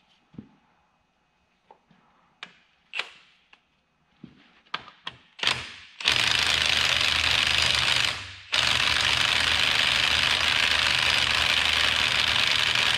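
A few clanks of tools and parts being handled, then about six seconds in a cordless impact wrench starts hammering on a transmission yoke nut. It runs in two long stretches with a brief break about eight seconds in, and the nut does not come free.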